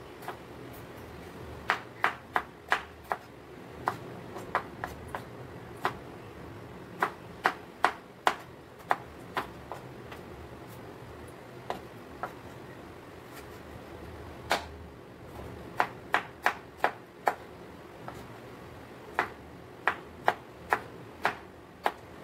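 Chef's knife chopping tomatoes on a wooden cutting board: sharp knocks of the blade on the wood, coming in quick runs of three to six strokes with short pauses between.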